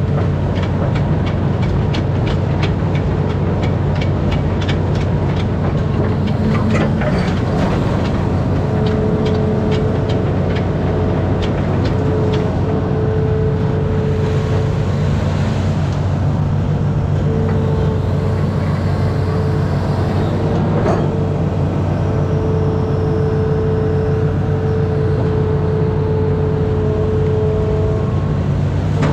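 Amphibious excavator's diesel engine running steadily, with a higher whine that cuts in and out. A rapid clatter of clicks runs through the first several seconds.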